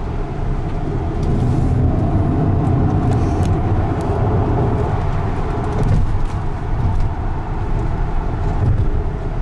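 Road and tyre noise inside the cabin of a Tesla Model X electric SUV accelerating through a curve: a steady low rumble that gets a little louder about a second in.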